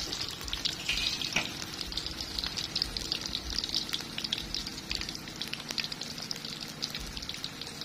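Pieces of battered salted fish frying in shallow hot oil in a steel wok: a steady sizzle with dense crackling, the fish cooked through.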